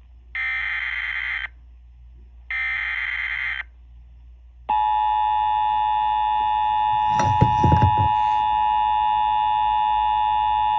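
Emergency Alert System broadcast over radio: two one-second screeching SAME digital header bursts, then about five seconds in the steady EAS attention tone starts and holds. A short crackle of interference cuts across the tone near the middle of it.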